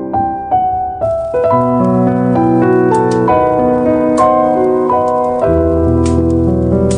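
Slow piano music with held chords and a gentle melody, with a few sharp pops from crackling firewood over it.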